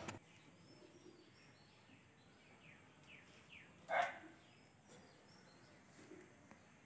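Faint bird chirps in the background of a quiet room, with one louder call about four seconds in that falls in pitch.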